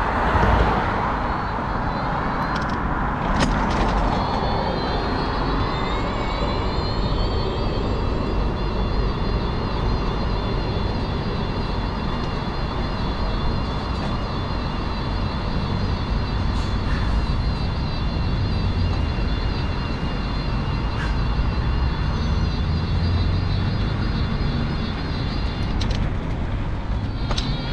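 Mobility scooter's electric drive motor whining as it picks up speed over the first few seconds and then holds a steady cruising pitch, over the rumble of its wheels on the tarmac path and road traffic. A car passes close by at the start.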